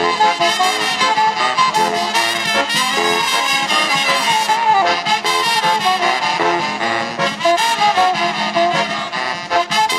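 Live dance band playing an instrumental passage: a horn section of trumpets and saxophones carries the melody over a drum kit's steady beat.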